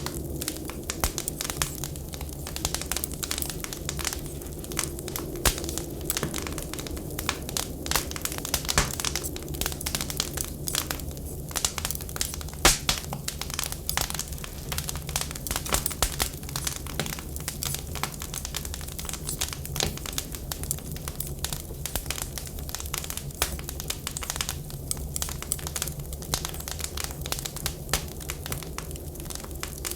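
Wood fire crackling, with dense irregular pops and snaps and one louder pop about halfway through, over a steady low rumble.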